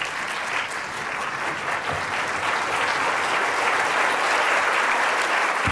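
Large audience applauding, steady clapping that swells a little over the first few seconds.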